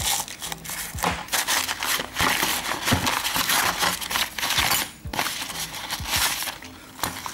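Stiff brown wrapping paper crinkling and rustling as it is handled and pulled open around new clutch packs, with a few short clicks.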